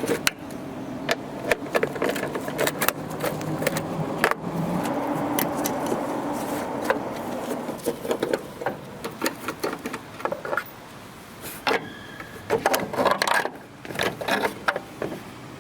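Hand ratchet with a 10 mm socket clicking in quick runs as the tail-lamp assembly bolts are backed out, with scattered clinks and knocks between runs.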